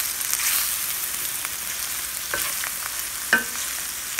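Food sizzling in hot oil in a pan, a steady hiss, with a couple of light knocks of a utensil against the pan in the second half.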